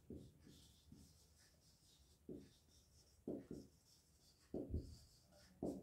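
Marker pen writing on a whiteboard: a handful of short, faint strokes spaced irregularly as a word is written out.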